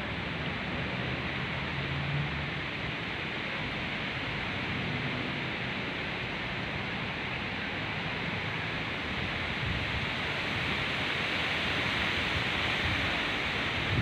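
Wind blowing through palm fronds and garden foliage: a steady rustling hiss that grows slightly louder over the last few seconds.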